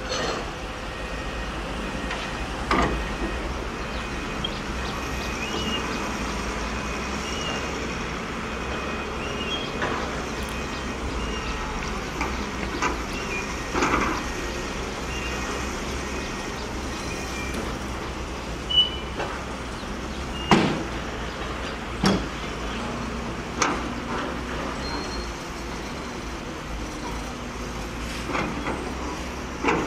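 Diesel dump truck engines running steadily while loads of dirt are tipped out of raised beds. Several sudden sharp knocks stand out, the loudest in the second half.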